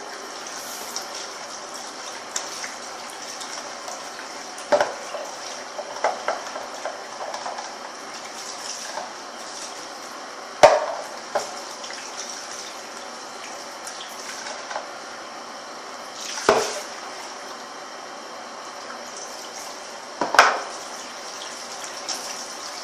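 Tap water running steadily into a sink while a slime bowl and utensils are washed out, with a few sharp clinks and knocks against the sink, the loudest about 11 and 16 seconds in and again near the end.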